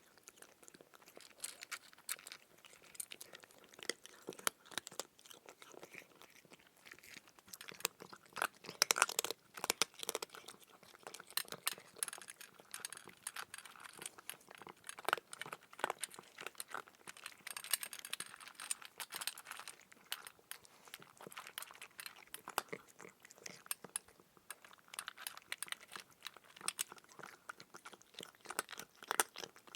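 Crunchy chewing: a dense, irregular run of small crackling crunches, like something crisp being munched.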